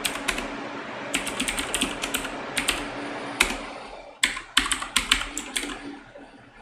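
Typing on a computer keyboard: quick bursts of key clicks with short pauses between them, stopping about a second before the end.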